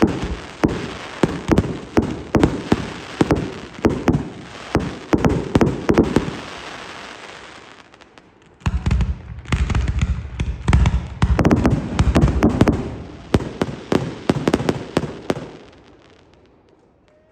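Fireworks display: rapid volleys of aerial shell bursts, many bangs a second. There is a short lull about eight seconds in, then a second dense volley with deeper booms that fades out near the end.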